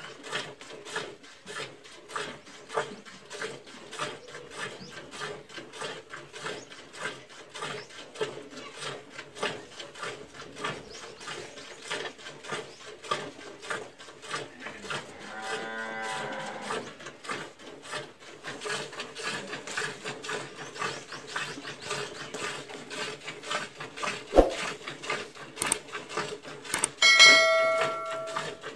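Cow being milked by hand, streams of milk squirting into a metal pail in a steady rhythm of short strokes. About halfway the cow moos once. Near the end a short bright chime sounds.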